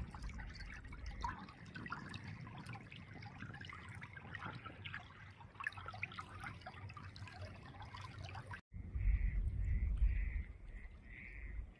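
Shallow muddy floodwater flowing fast over the ground, a steady trickling and babbling of small splashes. After a cut near the end, wind buffets the microphone with a low rumble, and a short call repeats about twice a second.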